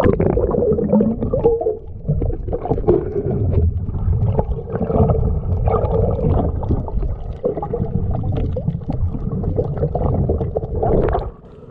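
Water heard through an action camera held under the sea surface: a muffled rumbling and gurgling with a steady hum and irregular knocks and crackles. The level drops sharply near the end.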